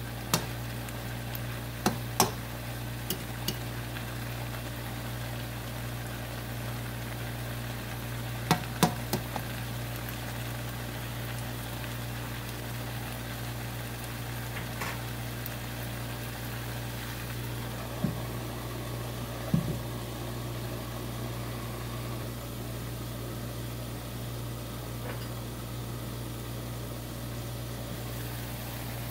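Long beans and pork belly sizzling in a nonstick wok, with a few sharp knocks of a plastic spatula against the pan near the start, about eight seconds in and again later, over a steady low hum.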